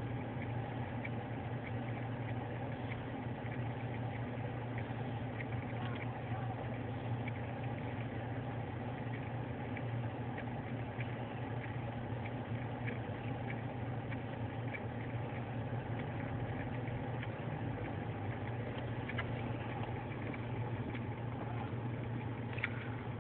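Four-wheel-drive vehicle's engine running with a steady low hum, heard from inside the cabin, with faint scattered clicks over it.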